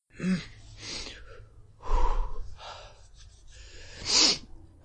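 A woman's performed breathing noises: breathy sniffs, a loud huff about two seconds in and a sneeze-like burst about four seconds in, voicing a man who has caught a cold.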